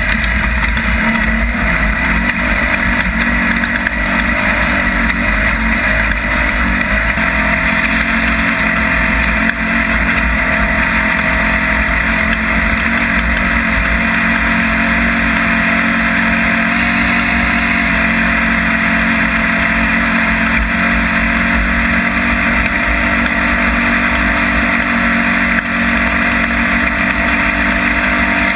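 Off-road race vehicle driving at a steady pace, its engine running loud and steady under a constant rush of noise.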